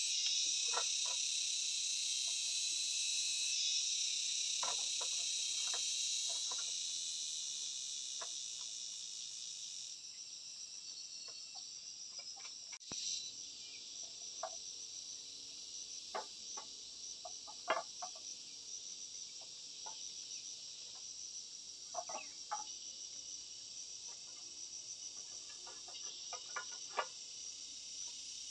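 A steady, high-pitched chorus of insects, louder for the first third and then lower, with scattered short clinks and knocks of clay roof tiles being picked up and set in place on a bamboo frame.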